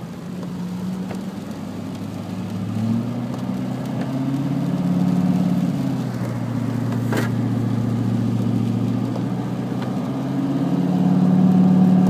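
Car engine and road noise heard from inside the cabin, the engine note stepping up in pitch and getting louder twice as the car changes speed. A single sharp click about seven seconds in.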